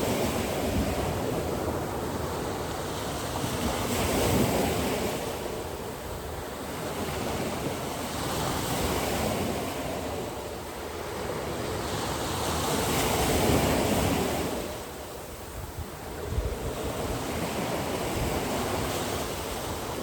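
Strong ocean surf breaking on a beach, the wash swelling and easing every few seconds, with wind buffeting the microphone.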